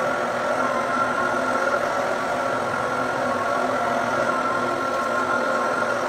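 Electric rotary floor buffer running steadily, a constant motor hum with a few steady tones as its pad scrubs a wet hardwood floor to lift old polish buildup.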